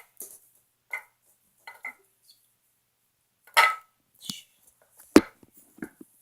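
A utensil clinking and knocking against a bowl a handful of times at irregular moments while slime is stirred, quiet in between.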